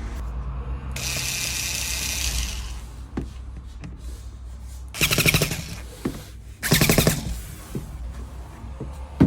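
Power drill-driver backing out the door handle's middle screw in two short runs, about five and seven seconds in, each a fast rattling whirr.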